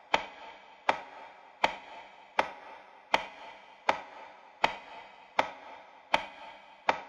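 Evenly spaced sharp knocks, one about every three-quarters of a second, each followed by a short ringing decay.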